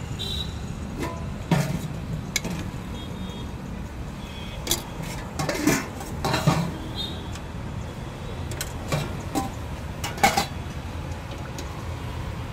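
Steel ladles and serving spoons clinking and scraping against steel pots and plates as rice and curry are served, a handful of sharp clinks scattered through, the loudest about ten seconds in. Under it a steady low hum of road traffic.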